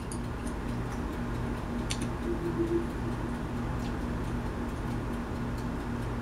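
Steady low hum with a few faint clicks of a computer keyboard and mouse while a web search is typed.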